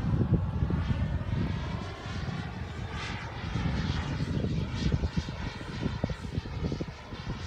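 Radio-controlled model airplane flying high overhead, its motor heard as a steady distant drone whose pitch wavers slightly, over an uneven low rumble.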